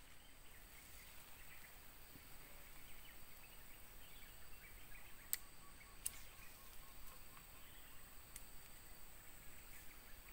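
Quiet outdoor ambience: a steady, high insect drone with faint bird chirps. Three sharp clicks come about halfway through.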